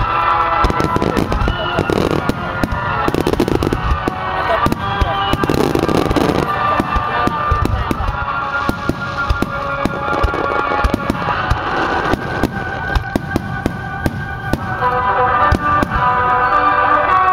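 Aerial fireworks bursting and crackling in quick, irregular succession, many sharp reports one after another, with music playing underneath throughout.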